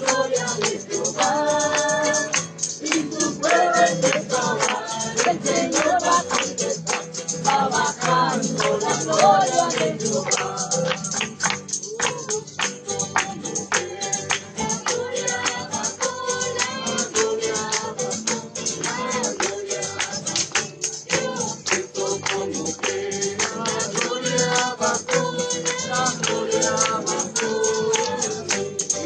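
Group singing a worship chorus to a steady, quick beat of a shaken tambourine.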